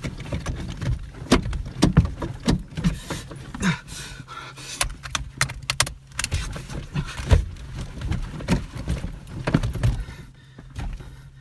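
A car seat belt being pulled out and fumbled with: repeated metallic clicks and jingling rattles of the latch plate and buckle, over a steady low hum.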